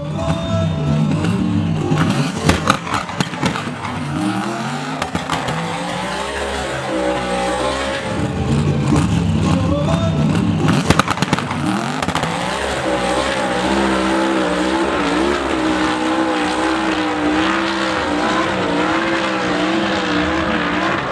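Twin-turbo Nissan Patrol dune-racing engine revved hard in bursts with sharp crackles while staged, then held at high revs from about halfway through as the truck launches and climbs the sand dune.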